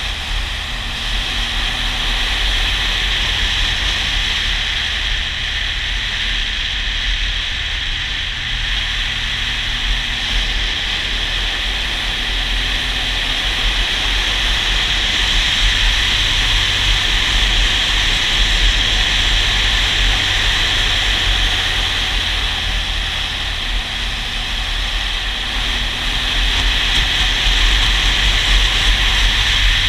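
Riding noise on a moving motorcycle: wind rushing over the camera microphone with a steady low rumble, and the engine's hum faintly under it at times. It grows a little louder about halfway through and again near the end.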